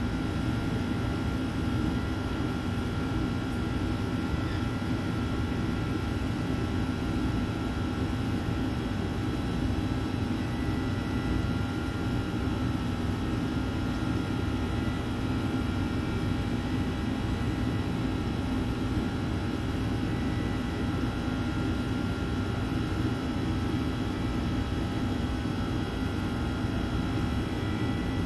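Steady machine hum of a commercial bakery's equipment and ventilation: a dense low drone with several faint steady whining tones over it, unchanging throughout.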